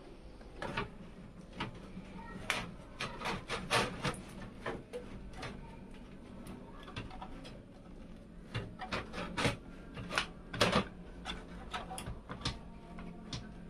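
Hands working cables and parts in a steel Aerocool Tern Mini PC case: irregular clicks, taps and rubbing of cables against metal. The clicks come in two busy clusters, one early and one in the second half.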